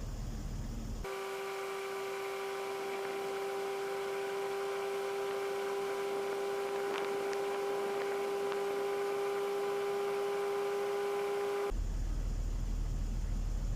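A steady humming tone with overtones, starting about a second in and cutting off sharply near the end, with a few faint ticks in the middle. The low rumble around it drops out while the tone sounds.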